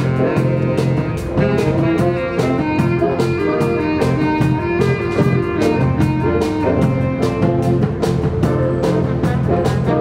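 Jazz band playing live: a drum kit keeps a steady beat under electric bass and sustained chords.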